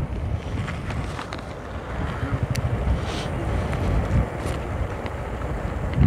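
Motorcycle engine running while riding, with wind buffeting the helmet-mounted microphone.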